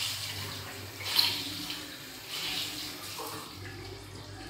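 Water running from a bathroom sink tap and splashing as a cloth is rinsed under it by hand, with uneven louder spurts; the splashing dies down after about three seconds.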